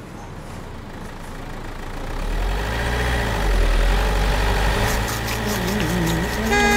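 Truck engine sound effect, growing louder as it approaches over the first few seconds and then running with a steady low rumble; a horn starts to honk right at the end.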